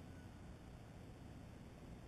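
Near silence: faint, steady outdoor background noise with no distinct sound events.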